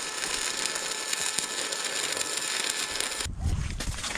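Electric arc welding on a steel tractor frame: a steady crackle and hiss from the arc. About three seconds in it cuts off abruptly, leaving a low rumble.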